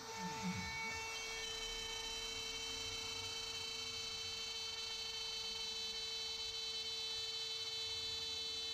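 CNC router spindle running steadily with a high whine, as the machine starts its programmed circle cut. Near the start, short rising and falling glides from the stepper motors moving the head.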